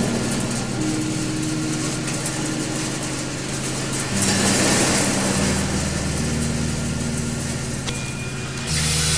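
Factory-themed sound piece: several steady machine hums at different low pitches, shifting from one set to another, over a constant hiss that swells loudly about four seconds in and again near the end.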